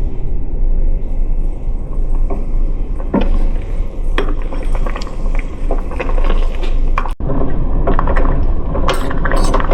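Kitchen clatter of dishes, pots and utensils clinking and knocking, scattered at first and busier near the end, over a steady low rumble.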